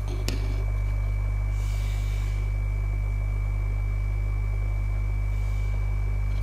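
EHEIM air 1000 aquarium diaphragm air pump running close to the microphone: a steady low electric hum that grows louder over the first second, then holds, with a thin high tone above it. A single click sounds just after the start.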